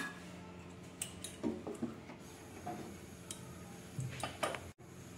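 Faint, scattered light ticks and clinks, a few in all, over a steady low hum.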